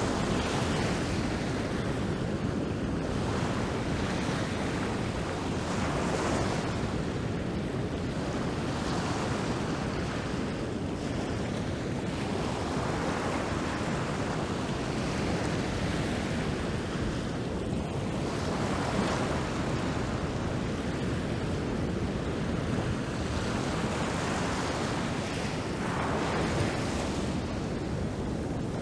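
Rough ocean surf breaking over a rocky shore: a continuous rush of water that swells every few seconds as waves break and wash through the rocks.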